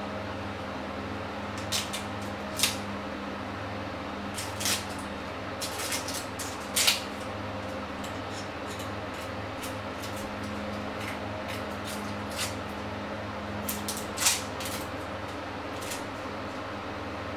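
Scattered small clicks and taps of hard-boiled eggs being peeled with a small knife, bits of shell falling into an enamel bowl, the sharpest taps about seven seconds in and again near fourteen seconds. A steady low electrical hum runs underneath.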